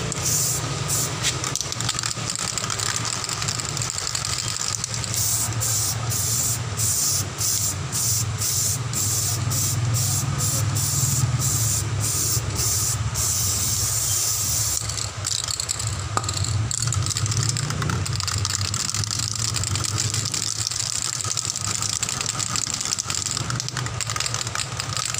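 Aerosol spray paint can spraying onto a car's alloy wheel: a hiss in short bursts, about two a second, starting some five seconds in, then one longer continuous spray that stops about fifteen seconds in, over a steady low hum.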